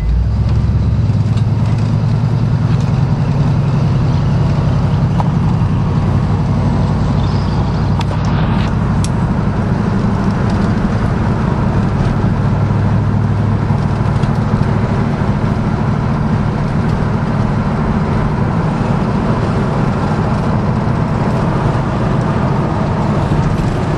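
1972 Ford F-100's 390 FE V8 running steadily through Hooker competition headers and 30-inch glass-pack dual exhaust, a loud, low exhaust note.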